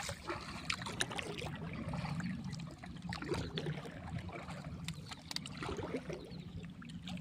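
Water splashing and trickling, with scattered small clicks and knocks over a steady low hum.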